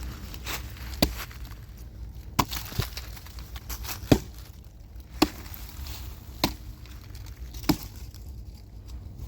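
Wood being chopped with an axe: six sharp blows about a second apart, with a weaker knock after the second, the loudest near the middle.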